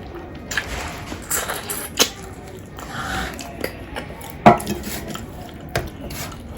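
A plate and cutlery clinking and knocking while a man eats, in scattered sharp clicks. The loudest knock comes about four and a half seconds in.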